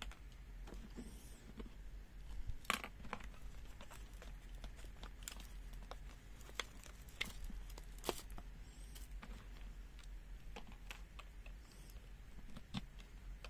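Quiet handling noises: rustling of a temperature probe's thin wire and scattered sharp plastic clicks as plugs are pulled from and pushed into a multimeter's input jacks, the loudest clicks about three seconds in and near eight seconds.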